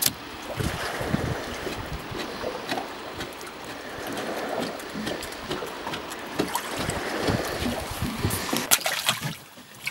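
Knife working Arctic char fillets on a plastic cutting board: scattered clicks, taps and scraping of the blade on the board, with one sharp knock near the end. Wind buffets the microphone underneath.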